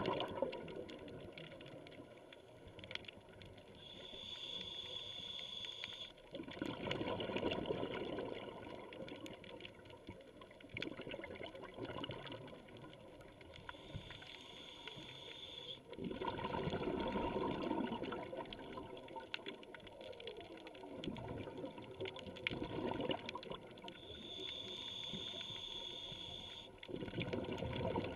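Scuba diver breathing through a regulator underwater: three slow breaths, each a hissing inhale with a thin whine, followed by a longer gurgling rush of exhaled bubbles.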